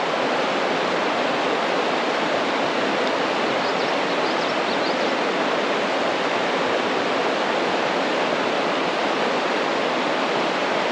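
Steady rushing of water pouring over a waterfall.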